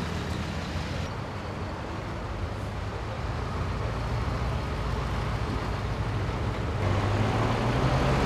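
Road traffic noise with the steady low hum of motor vehicle engines running. It shifts abruptly about a second in and again near the end, where it grows louder.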